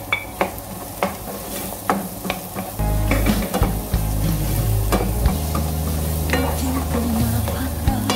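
Chopped onion and garlic sizzling in hot oil in a coated frying pan while a wooden spatula stirs them, with frequent sharp scrapes and taps against the pan. Low held music notes come in underneath about three seconds in.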